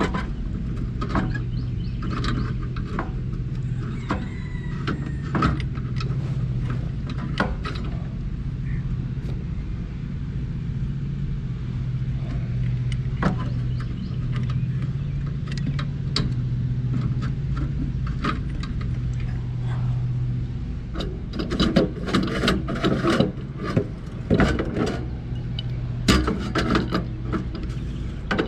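Scattered metal clicks and clinks of hand tools on threaded galvanized pipe fittings, over a steady low hum; about two-thirds of the way in the clatter becomes busier and louder.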